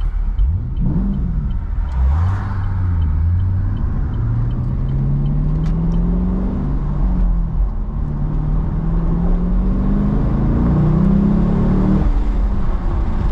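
Chevrolet Camaro SS V8 with a manual gearbox accelerating hard, heard from inside the cabin. The engine note climbs in pitch through each gear and drops back at each of about three upshifts, around 2, 7 and 12 seconds in.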